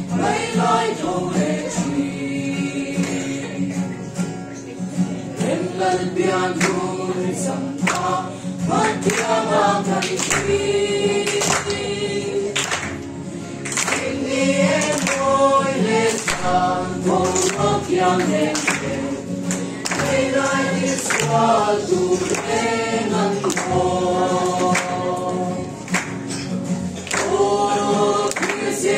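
A small mixed group of young women and men singing a Christmas carol together in parts.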